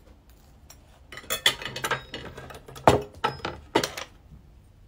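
Metal cutlery clinking and knocking against a ceramic plate as toast and a knife are set down: a quick run of clinks lasting about three seconds, the two loudest near the end.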